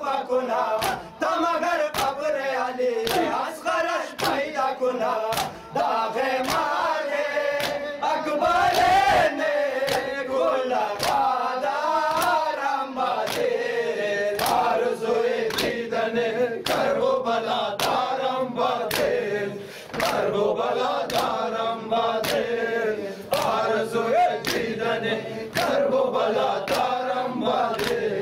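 Shia mourners performing matam: a group of men chanting a noha in unison while striking their chests with open hands in a steady rhythm of sharp slaps.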